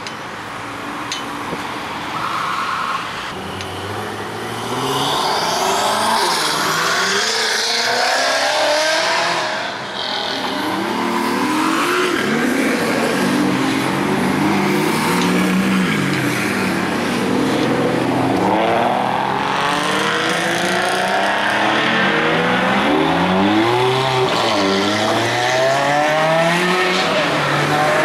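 Several high-performance sports-car engines revving and accelerating away one after another, their notes rising and falling and overlapping. The sound gets louder about five seconds in and stays loud, with a short lull near ten seconds.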